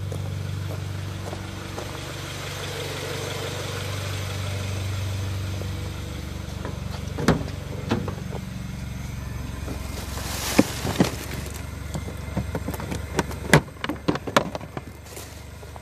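A Honda CR-V's four-cylinder engine idling steadily as a low hum, heard muffled from inside the cabin, running smoothly on a coil-on-plug ignition conversion. From about seven seconds in, handling noises are laid over it: a rustle, then a run of sharp clicks and knocks that grows busier toward the end.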